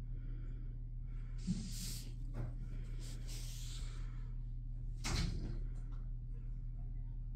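Steady low hum, with a sharp click, two stretches of scraping or rustling, and a single knock about five seconds in.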